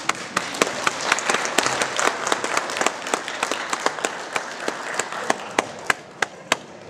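Audience applauding: dense clapping that thins after about five seconds to a few separate loud claps close by, which stop shortly before the end.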